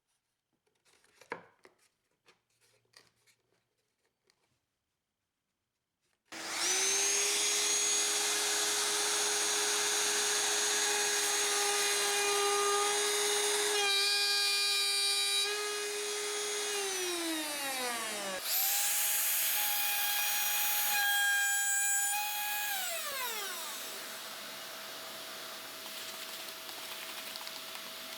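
Trim router starting abruptly after a few faint handling clicks and running with a steady high whine while routing wood. It winds down, starts again at a higher pitch and winds down once more, leaving a dust-collection vacuum running steadily.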